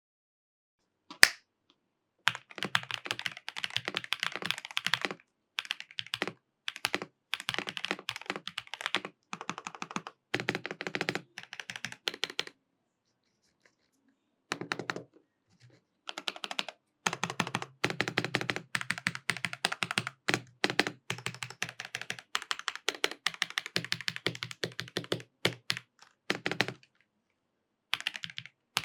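Fast typing on an EWEADN C65 V2 gasket-mounted 65% mechanical keyboard with pre-lubed linear switches and foam damping. The keystrokes come in runs of a few seconds with short pauses between them, and a single sharp click comes about a second in.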